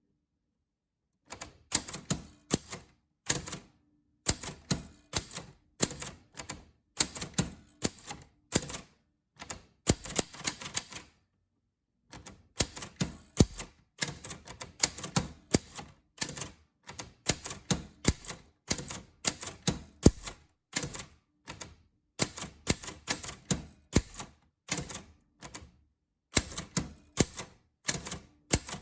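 Typewriter keys being struck in quick runs of clicks, typing out text, with brief pauses between runs.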